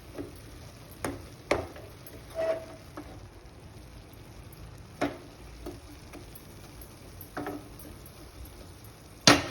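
Spatula stirring fenugreek greens and moong dal in a pot as they fry dry, with a faint sizzle and scattered clinks against the pot. Near the end comes a quick run of loud knocks on the pot.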